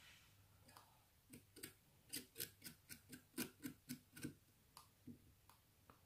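An irregular run of sharp little clicks and taps, about fifteen, bunched between about one and five seconds in. They come from pulsing the coils of a rebuildable dripping atomizer on a vape mod while the coils are worked with ceramic tweezers.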